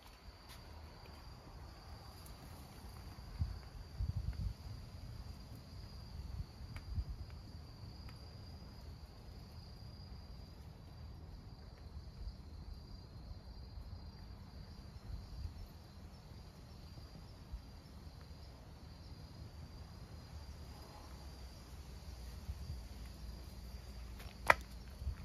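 Crickets chirring in one steady, high, unbroken drone, with a few low thumps about four seconds in and a single sharp click near the end.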